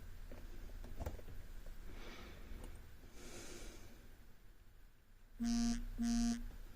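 Faint clicks from picking a Yale Y112 disc detainer padlock, with soft breathing. Near the end come two loud, low buzzes of about half a second each, a short gap apart; they are the loudest sound.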